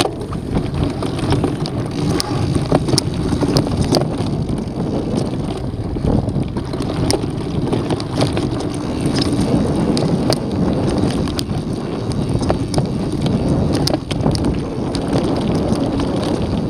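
Mountain bike riding over a dirt and rock trail: tyre rumble mixed with wind noise on the microphone, and frequent sharp clicks and rattles as the bike goes over rough ground.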